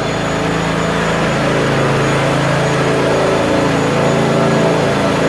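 A motor running steadily, its hum shifting slightly in pitch.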